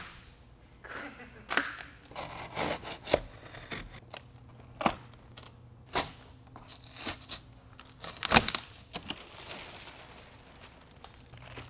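Cardboard ripping and plastic sheeting crinkling as a cardboard mould panel is pulled off set polyurethane pour foam: irregular rustles and tears, the loudest about eight seconds in.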